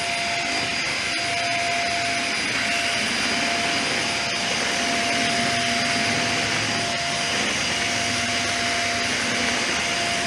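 Dyson vacuum cleaner running steadily with a high motor whine, sucking up oil treated with Krudz 502 from a concrete floor.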